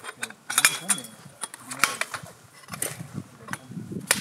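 Aluminium tent pole sections of a Tentipi Zirkon 9 Light clicking and clacking as they are handled and fitted together: a scatter of light, sharp knocks at irregular intervals.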